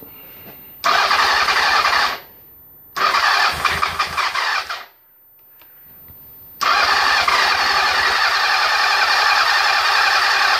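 1997 Honda CB750's inline-four engine being cranked on the electric starter with the choke on, in three attempts: about a second, then nearly two seconds with an uneven level, then about four seconds. The engine does not catch. The mechanic takes the hard starting for a sign of lost compression.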